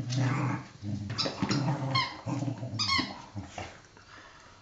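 A dog growling low in several stretches while biting a squeaky toy, which gives a few short, high squeaks in the first three seconds.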